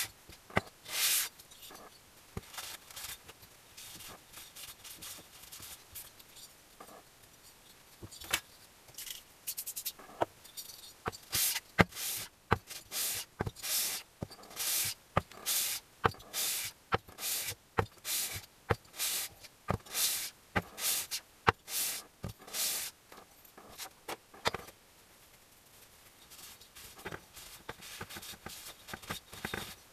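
An aluminium two-stroke engine cylinder is slid back and forth on abrasive paper laid flat on the bench, rasping in a run of rhythmic strokes a little over once a second, lapping its gasket face flat. The strokes thin out to a few lighter scrapes and rubs near the end.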